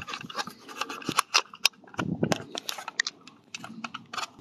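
A rapid, irregular run of clicks and rustles close to the microphone, with no steady tone or rhythm.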